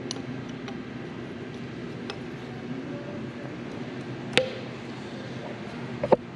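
Metal parts and hand tools clinking against a steel diesel cylinder head during valve work, over steady shop background noise. There are a few faint ticks, then one sharp ringing clink about four seconds in and a quick double click near the end.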